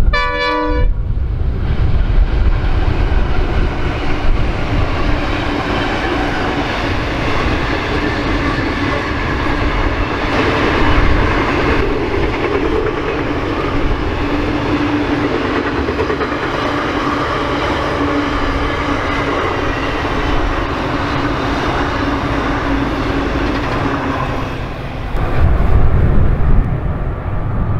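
A freight train's wagons rolling past with a steady rushing noise on the rails, opened by a short pitched tone in the first second. About three seconds before the end the rolling noise stops and a louder low rumble takes over.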